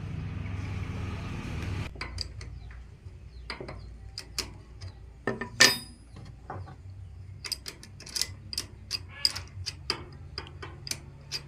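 A low steady rumble cuts off about two seconds in, then irregular sharp metal clicks and clinks as the blades and small metal parts of an electric wood planer are handled and fastened with hand tools.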